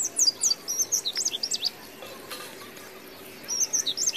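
Small birds chirping rapidly with high, quick down-sweeping notes. The chirping drops away for about a second and a half past the middle, then resumes.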